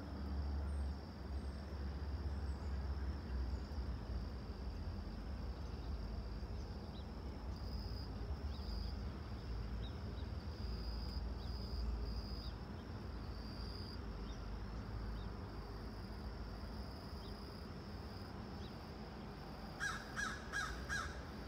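Steady low rumble under a high, steady insect chirring. Near the end come four quick, harsh calls in a row.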